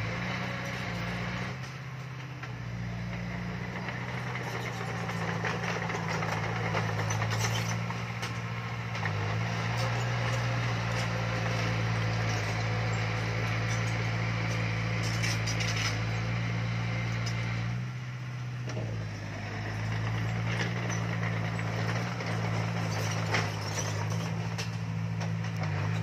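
Heavy construction machine's diesel engine running steadily under load, its note dropping and picking up again a few times, with a few short metallic clanks.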